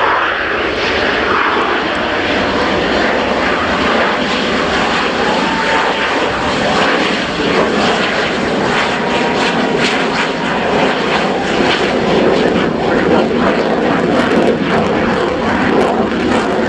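F-16C fighter jet's single Pratt & Whitney F100 turbofan, loud and steady as the jet flies a display manoeuvre overhead, with a crackling edge in the second half.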